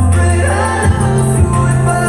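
A song with singing and a heavy, sustained bass line, played through an F&D F550x 2.1 speaker system with subwoofer. The bass steps up to a higher note about a second in.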